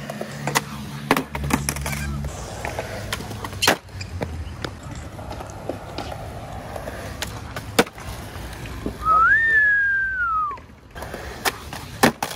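Skateboard wheels rolling on concrete, with scattered clacks and knocks from the board. About nine seconds in, a loud high-pitched squeal holds for about a second and a half, then drops in pitch at the end.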